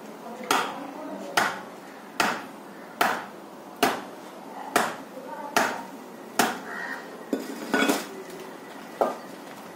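Meat cleaver chopping through a goat leg on a block: a steady series of about eleven sharp chops, a little under one a second, each ringing briefly.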